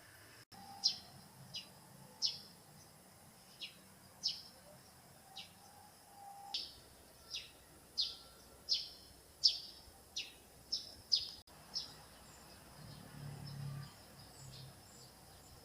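A bird calling: about fifteen short, sharp chirps, each dropping quickly in pitch, repeated irregularly about once a second.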